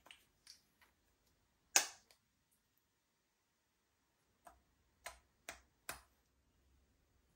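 Slime being pressed and folded by hand, giving sharp clicking pops as air pockets burst. There are three quick pops at the start, a louder one about two seconds in, then a run of four more near the end.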